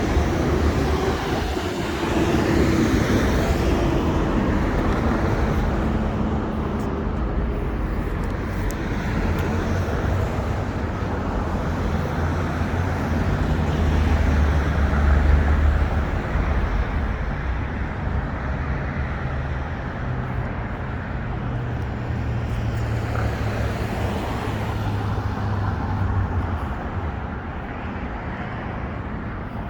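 Downtown street traffic: cars passing and engines running in a continuous rumble, with one vehicle louder around the middle.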